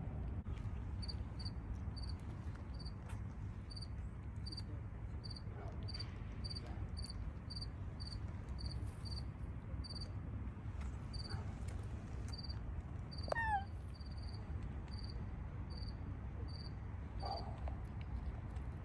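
A cricket chirping steadily, roughly two short high chirps a second, over a low outdoor rumble. About thirteen seconds in comes a single short, high squeak that falls in pitch.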